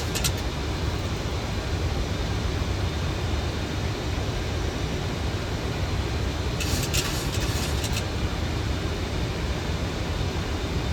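Steady cockpit noise on a Boeing 737's flight deck during descent: airflow and engine noise, heaviest in the low end. About seven seconds in, a brief burst of high-pitched crackle lasts about a second.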